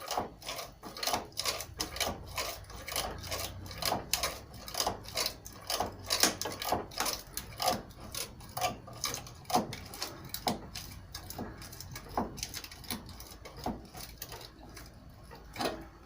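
Light hammer strikes tapping at a car's steel body panels, a quick irregular series of about three blows a second, each with a short metallic ring.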